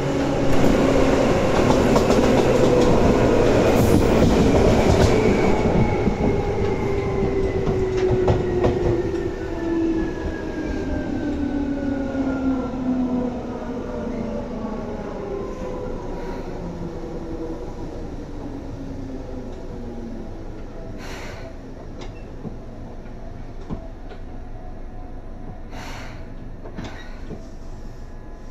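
Seibu 2000 series electric train heard from on board, slowing down: the whine of its traction motors and gears falls steadily in pitch and the running noise eases as it brakes toward a stop. A few sharp clicks sound in the second half.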